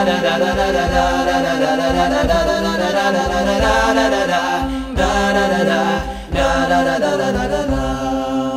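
A cappella vocal music: voices singing in harmony without words over a steady low drone and a regular beat.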